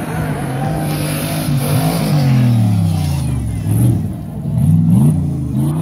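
Off-road race buggy's engine revving hard, its pitch climbing and dropping several times as the throttle is worked while it climbs a loose dirt slope close by. It is loudest as it passes nearest.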